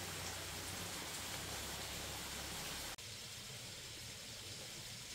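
Steady hiss-like background noise. About three seconds in it cuts abruptly to a slightly quieter, different noise.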